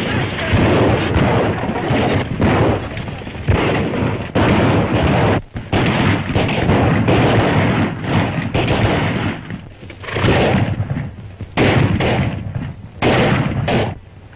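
Gunshots over a continuous dense, noisy din on an old 1930s film soundtrack, with short dips in loudness.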